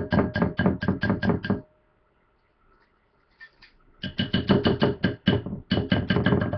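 A metal utensil clinking against a mixing bowl in a quick, even rhythm of about five strikes a second, with a slight ring, as a maple syrup and mustard glaze is stirred. The clinking stops about a second and a half in and starts again about four seconds in.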